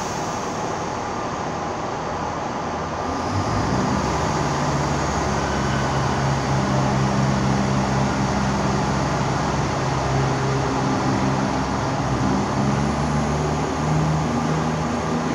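Class 170 Turbostar diesel multiple unit at the platform with its underfloor diesel engines running. About three and a half seconds in, the engines rev up and get louder as the train pulls away, the engine note stepping up and down.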